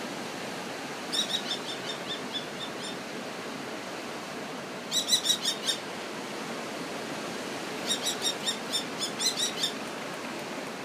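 Falcon calling in three runs of rapid, repeated high-pitched notes, over a steady hiss.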